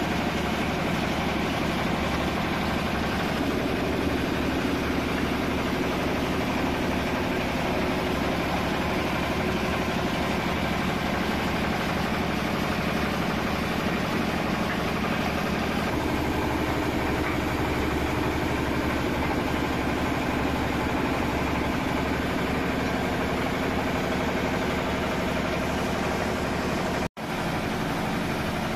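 Water-cooled 12 HP single-cylinder stationary diesel engine running steadily under load, driving a No. 8 rice huller through a flat belt, with the huller husking paddy. The sound breaks off for a moment near the end.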